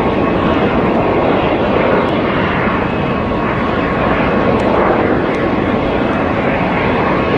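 Airplane engine noise, loud and steady, with a faint thin whine running through it.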